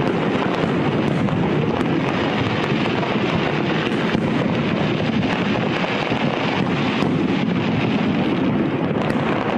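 A continuous barrage of fireworks, with many bursts merging into a steady rumbling roar and scattered sharp cracks and pops through it.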